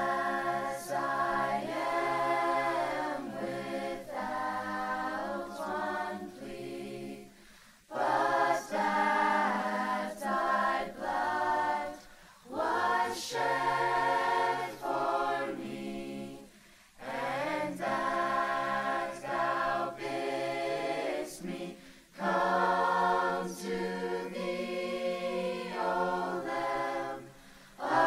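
Mixed high school choir of boys and girls singing in harmony. The song moves in phrases of a few seconds each, separated by brief pauses for breath.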